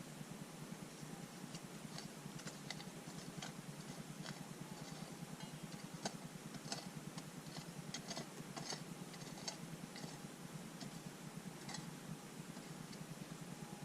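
Small stones and gravel clicking and tapping irregularly as rocky ground is worked to recover a metal detector target, over a faint steady tone.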